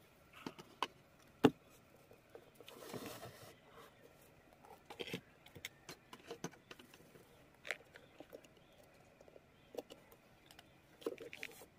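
Scattered small clicks and taps from handling a loudspeaker's metal frame while the old lead wire is worked off its terminal tab with a pointed tool, with a brief scrape about three seconds in.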